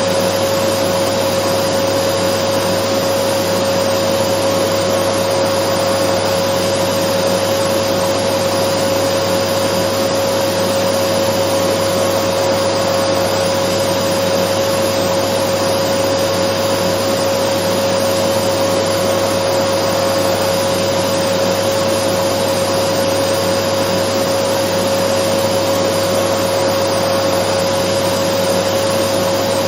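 Dyson vacuum cleaner running continuously, a steady rushing hiss with a constant whine on top, used as white noise to soothe a baby.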